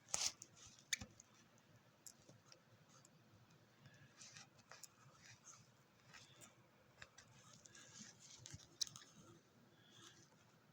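Near silence: room tone with faint scattered clicks and rustles, and a few sharper clicks.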